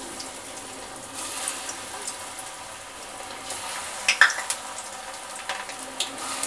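Masoor dal pakora batter deep-frying in hot oil in a steel kadhai: a steady sizzle, with sharp pops and crackles as more lumps of batter are dropped in, the loudest about four seconds in.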